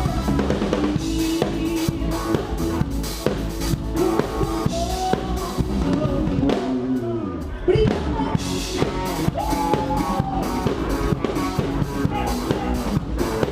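Band music driven by a full drum kit: steady kick, snare and cymbal hits over bass and other pitched instruments.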